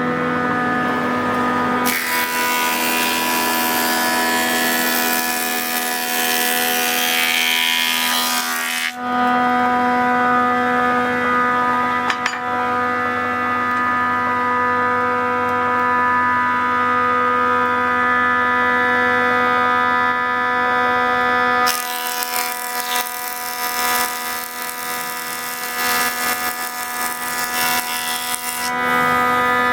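Chang Iron 41 cm wood planer running with a steady machine hum. Twice, for about seven seconds each time (from about two seconds in and again from about twenty-two seconds in), a much louder rushing cutting noise is added as boards are fed through and planed.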